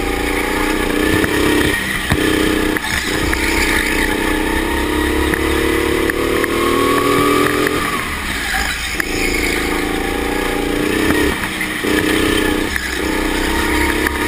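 Go-kart engine running hard, heard from the driver's seat, its note breaking off briefly about five times as the throttle is lifted for the corners. A separate higher tone rises and falls through the middle.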